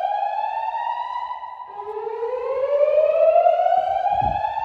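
Fire alarm voice-evacuation system sounding its slow whoop alert tone through the building's speakers. It is a tone that sweeps steadily upward from low to high over about three and a half seconds. One sweep ends about one and a half seconds in and the next begins low again.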